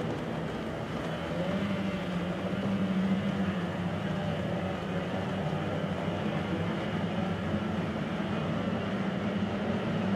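Racing boats' two-stroke outboard motors running, a steady drone across the water whose pitch rises and falls slightly in the first few seconds.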